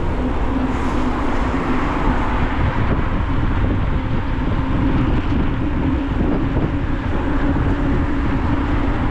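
Steady wind rush and road noise picked up by a camera mic on a moving bicycle, with a continuous low hum.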